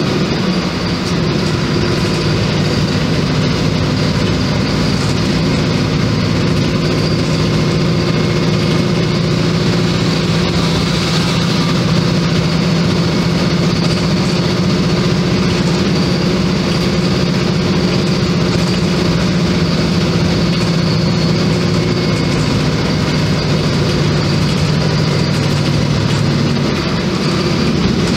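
Volkswagen 15.190 EOD city bus engine running at a steady speed while the bus drives, heard from inside the passenger cabin: a steady low engine drone over road noise.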